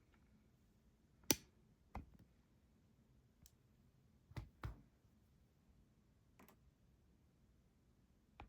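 A picked lock and its tools being handled to lock it back up: about six short sparse clicks, the loudest about a second and a half in and two close together a little past the middle.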